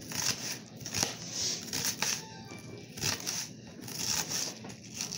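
Kitchen knife chopping onion on a board, a crisp cut about every half second.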